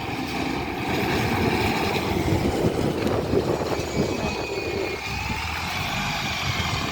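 Alexander Dennis Enviro300 single-deck bus driving past with engine and road rumble, and a thin whine comes in about four seconds in as the rumble eases.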